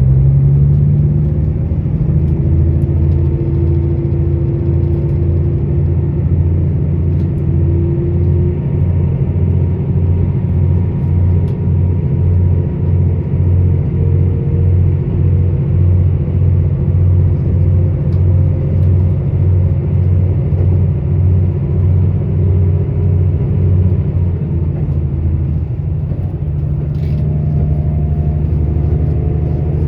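JR Central KiHa 85 diesel railcar's Cummins engine running under way, heard from inside the passenger car, with a steady low drone and a regular pulsing beat. Near the end the beat stops and the engine note changes pitch.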